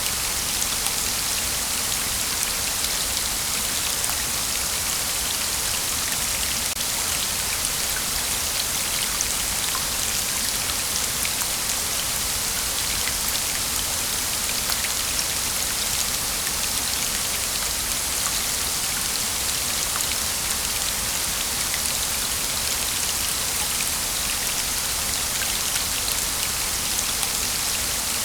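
Waterfall: a steady, even rush of falling water, hissy and bright, with a fine patter of droplets through it.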